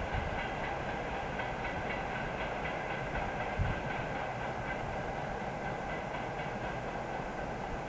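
A freight train of railway tank cars rolls away along the track, its wheels clicking over the rail joints in a steady rhythm, with a steady high tone running under it. One small thump about halfway through.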